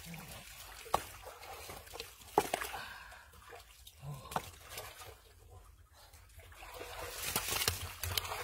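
Hands digging in wet mud and water inside a burrow in an earth bank: squelching, trickling and splashing, with a few sharp knocks. It grows louder near the end.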